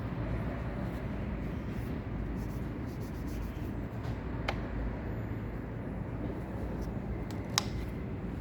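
Steady low rumble of workshop background noise, with a sharp click about four and a half seconds in and a louder click near the end.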